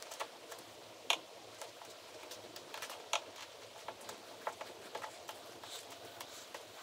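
Faint, scattered small clicks and taps from hands and a screwdriver working at the antenna grommet on a car fender, with a sharper click about a second in and another about three seconds in.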